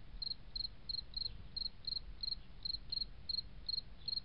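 Insect chirping: a regular, high-pitched chirp repeated about three times a second.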